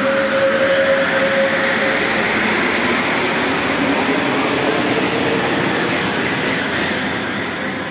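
Concarril NM-73 rubber-tyred metro train running past, with a steady hum of running noise and a traction-motor whine that rises in pitch as it picks up speed, easing off a little as the last car goes by.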